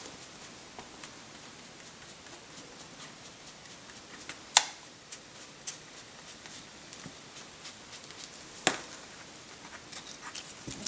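Foam blending sponge being rubbed and dabbed over paper card, a faint scratchy rustle of many small ticks. Two sharp knocks come about four and a half and eight and a half seconds in.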